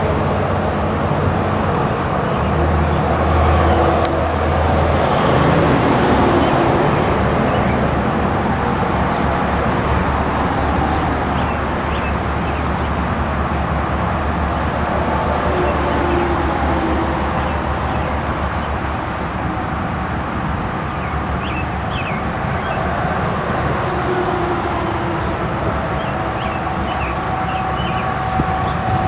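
Steady noise of heavy interstate highway traffic, cars and trucks passing.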